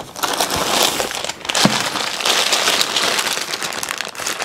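Clear plastic zip-lock bag crinkling and rustling steadily as it is handled, with many small crackles.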